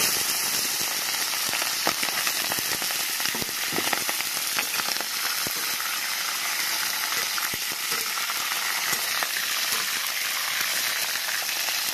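Chicken feet deep-frying in hot mustard oil: a steady, dense sizzle with scattered pops and crackles, starting loud as they go into the oil.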